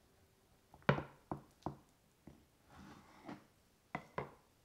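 Knife cutting through a toast sandwich on a wooden cutting board: a series of sharp knocks of the blade and bread against the board, the loudest about a second in and two more near the end, with a short soft rustle in between.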